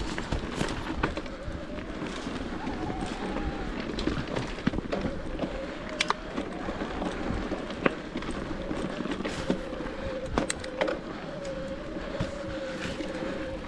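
Santa Cruz Heckler electric mountain bike ridden over rough trail: steady tyre and trail noise with sharp clacks and rattles from the chain and frame over rocks, and a faint wavering whine from the motor.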